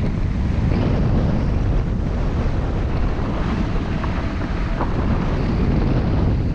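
Steady rush and buffeting of wind over the camera microphone on a hang glider in flight, strongest in the low end.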